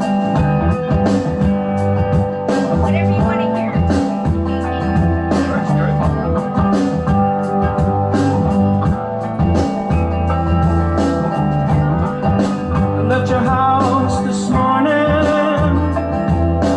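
Background music: a song with guitar, a steady bass line and drums keeping an even beat.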